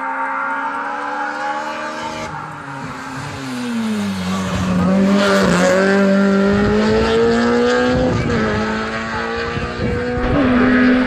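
Hill-climb race car's engine running hard. The revs drop about four seconds in, then climb again as the car accelerates out of the hairpin, with a brief dip at a gear change about eight seconds in.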